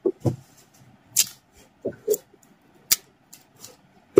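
Cardboard packaging box being handled and packed by hand: a string of separate taps, knocks and scrapes, about seven in four seconds.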